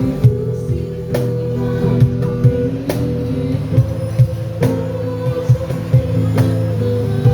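Live band music: strummed guitar chords over a drum kit beat.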